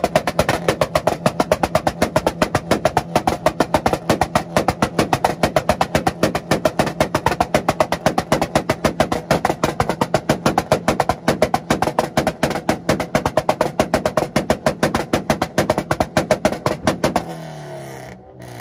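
Acura Integra engine held on a two-step launch limiter, crackling in a fast, even string of exhaust pops. Near the end the limiter releases and the revs fall away.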